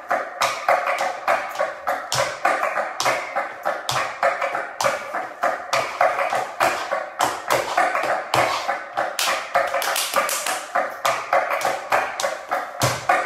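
Fast, sharp percussive taps in a flamenco bulerías rhythm, several a second with stronger accents, over a steady backing.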